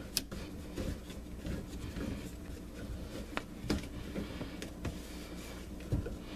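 Hand-tightening the plastic slip nut on a sink drain tailpiece under a stainless basket strainer: a few faint scattered clicks and rubbing of plastic, over a low steady hum.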